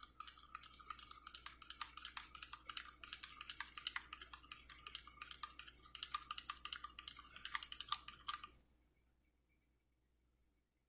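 Spoon stirring honey syrup into a cup of tea, clinking rapidly and lightly against the side of the cup; the stirring stops about eight and a half seconds in.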